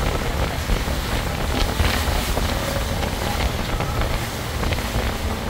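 Tour boat under way: its engine running steadily with water rushing along the hull and wind buffeting the microphone.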